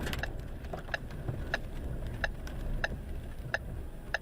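Steady low rumble of a vehicle with a sharp click about every two-thirds of a second, typical of a car's turn-signal or hazard-light relay ticking.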